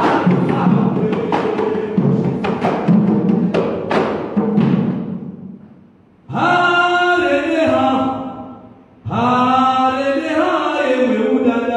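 Igwadu ngoma music: drums beaten in a fast, dense pattern that dies away about five seconds in. Then voices chant in two long, held phrases with a short break between them.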